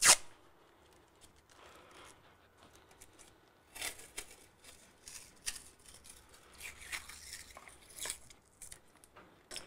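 Hands working masking tape on a fishing rod: one sharp click at the start, then scattered short scratching, crinkling and tearing sounds.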